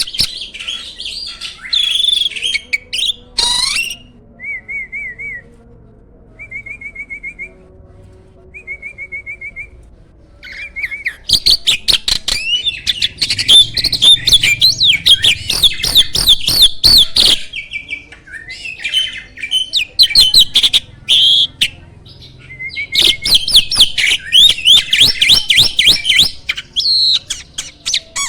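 Jalak (starling) singing a varied song: whistled gliding notes and short repeated trills, broken by long stretches of rapid, loud chattering.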